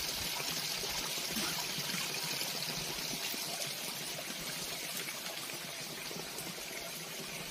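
Shallow mountain stream running steadily over rocks, a continuous watery hiss that grows slightly fainter toward the end.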